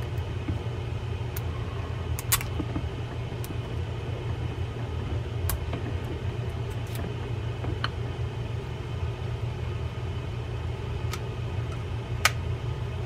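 A few sharp, small clicks and taps from handling the metal parts of an Okuma Salina 80 baitfeeder spinning reel, over a steady low hum.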